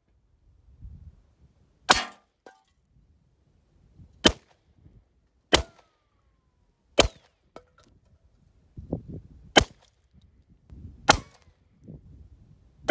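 Seven single shots from a Ruger PC Carbine semi-automatic 9mm carbine, fired one at a time at uneven gaps of about one and a half to two and a half seconds.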